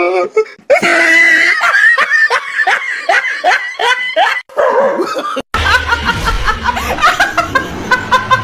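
A person laughing hard in rapid, repeated bursts. About five and a half seconds in it breaks off briefly, and a second bout of laughter starts over a low hum.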